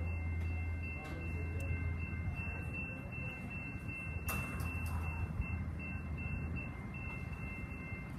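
Electronic warning bells of a tram level crossing ringing continuously as a steady high tone, over a low rumble.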